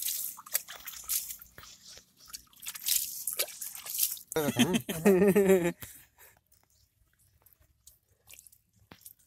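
Water splashing and dripping off hands onto a PVC pipe lying in wet mud, with wet squelching and rubbing as the pipe is handled. A voice speaks briefly about halfway through. After that it goes mostly quiet, with a few small clicks.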